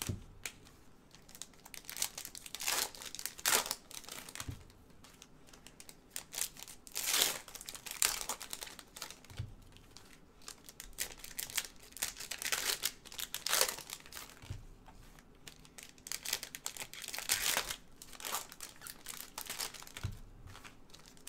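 Foil trading-card pack wrappers crinkling and rustling in gloved hands as packs are handled and cards sorted, in irregular bursts, with a few soft knocks in between.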